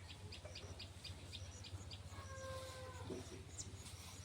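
A kitten gives one drawn-out mew about two seconds in, lasting about a second. Behind it, a fast run of short high chirps in the first half and a steady low hum.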